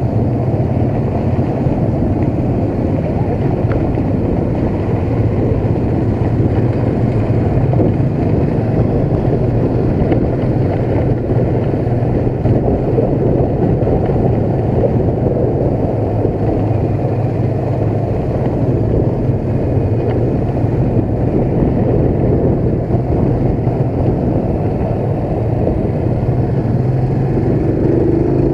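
Motorcycle engine running steadily at cruising speed, heard from on the bike itself as it is ridden along a rough lane.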